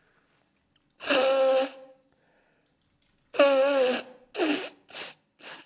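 A man with a head cold blowing his blocked nose into a tissue: two long honking blows, about a second in and again at three and a half seconds, then three short quick ones.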